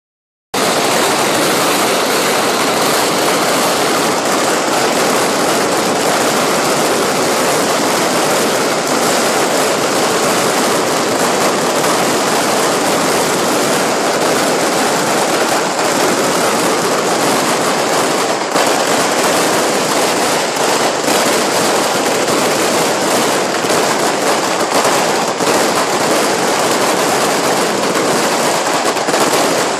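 Firecrackers going off in a dense, unbroken barrage, the cracks so tightly packed that they merge into one steady crackle; it starts abruptly about half a second in.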